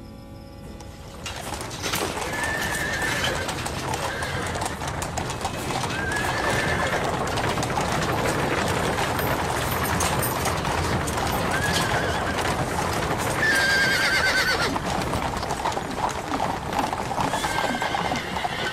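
Horses pulling a chariot at speed, their hooves clattering in a fast, dense clip-clop. The horses whinny several times in short calls.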